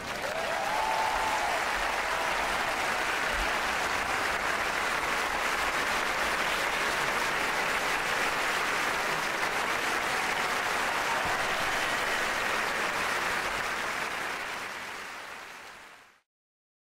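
Crowd applauding steadily, then fading out near the end.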